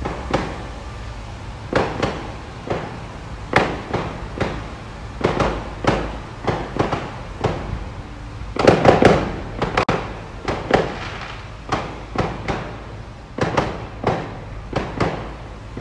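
Aerial fireworks going off: an irregular run of sharp bangs and pops, several bursting almost together about nine seconds in.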